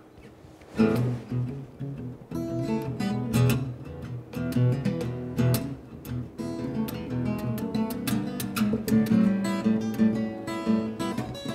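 Solo acoustic parlour guitar: one strum about a second in, then from about two seconds a steady picked blues intro with a bass line under the melody notes.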